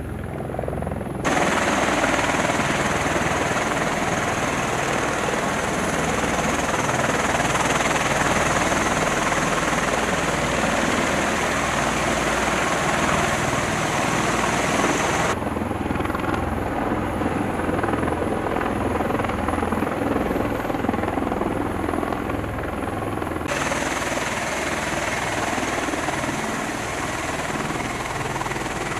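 Loud, steady rotor and turbine noise of MV-22B Osprey tiltrotors and CH-53E Super Stallion helicopters. It jumps louder about a second in, and its tone changes abruptly twice later on.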